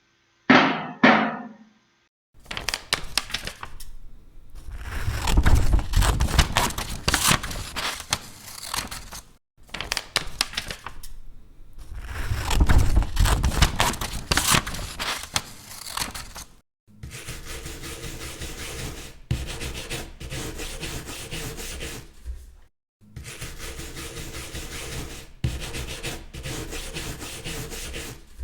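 Wood being worked by hand with a handsaw and a plane: rubbing, scraping strokes in four runs of several seconds each, separated by short pauses. The first two runs are louder. A hammer blow on wood fades out in the first second.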